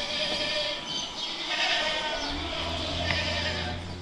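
Goats bleating with wavering calls. A low steady hum sets in a little over halfway through.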